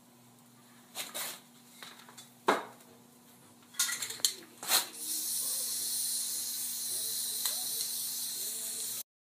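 Aerosol spray-paint can spraying: a few short spurts and a sharp knock, then a long steady hiss from about five seconds in that cuts off abruptly near the end.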